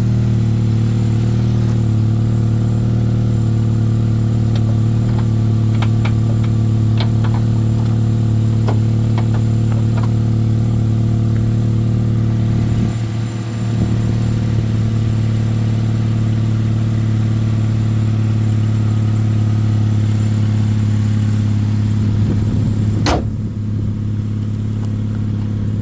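Chevy Malibu engine idling steadily just after starting on its newly replaced starter, with a few light clicks and one sharp knock near the end.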